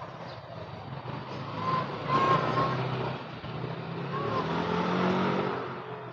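A motor vehicle driving past, its engine and road noise swelling and then fading over a few seconds, with a few short high tones heard over it.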